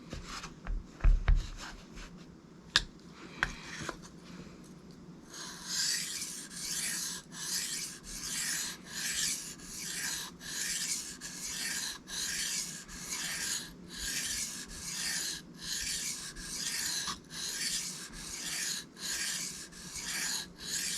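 A knife blade being stroked across a wet Shapton Kuromaku 1000-grit whetstone: a few light handling clicks, then from about five seconds in a steady run of even, rasping sharpening strokes, about one and a half a second, on the second side of the edge.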